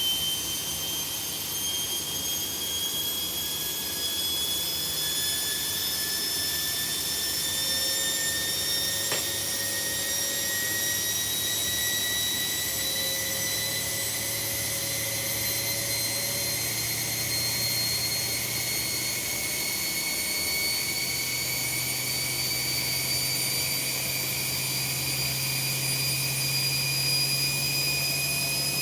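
Washing machines in their spin cycle, the motors whining higher and higher as the drums slowly speed up, over a steady low hum.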